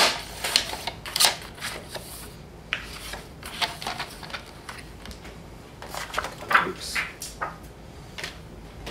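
A sliding-blade paper trimmer finishing a cut through patterned paper, then the cut sheets being lifted, separated and laid down: a string of short, irregular rustles and scrapes.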